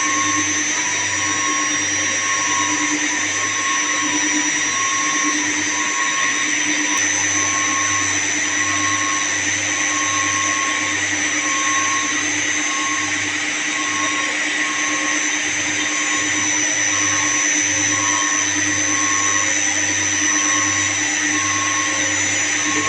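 Steady running noise of electric motor-driven machinery, such as the pumps and chiller plant around the job, with a high whine and a faint regular pulse a little faster than once a second.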